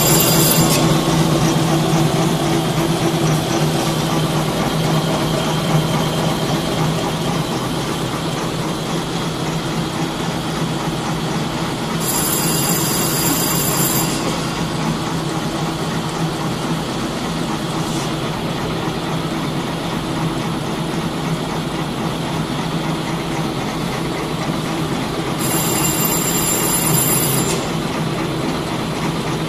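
Single-straw wrapping and printing machine running steadily, a continuous mechanical hum and clatter. A high-pitched whine comes in for about two seconds, twice, about 13 seconds apart.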